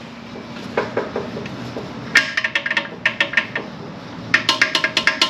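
Metal parts clinking and rattling inside a 42RLE automatic transmission's aluminium case as a hand works around the internals. The quick clinks ring briefly and come in three bursts: about a second in, from about two seconds in, and again near the end.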